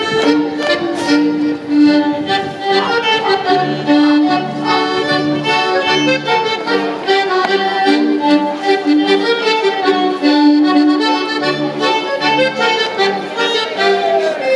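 Live Polish folk band playing lively dance music on fiddles and double bass, with a steady pulsing bass line under sustained melody notes.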